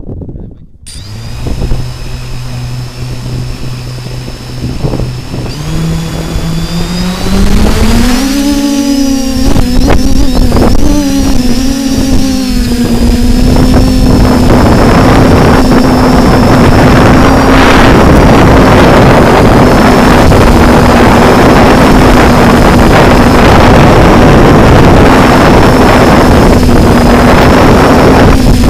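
Quadcopter drone's electric motors heard from its own camera. A steady low hum with a high whine starts about a second in, steps up in pitch around six to eight seconds in as it lifts off, then holds steady with a rushing noise as it climbs.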